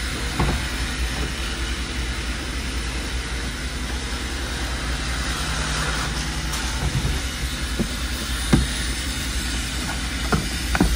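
Steady hiss and low rumble, with a few sharp plastic clicks: an overhead-console switch pressed early on, and the sun visor's vanity mirror cover clicking open twice near the end.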